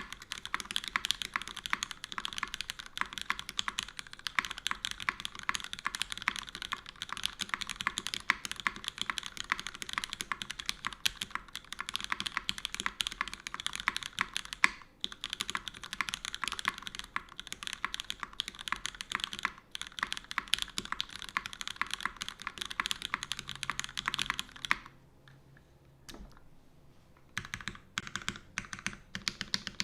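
Fast continuous typing on a custom mechanical keyboard with lubed Cherry MX Black linear switches in an aluminum plate, under GMK keycaps. The typing stops for about two seconds near the end, then picks up again.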